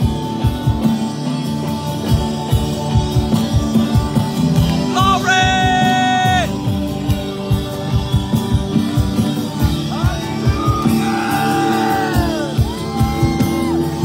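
Live band music with a drum beat under held chords, and a voice singing long held notes about five seconds in and again in the second half.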